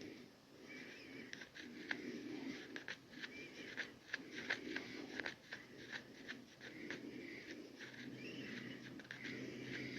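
Rhythmic wheezy breathing, about one breath a second, with scattered small clicks.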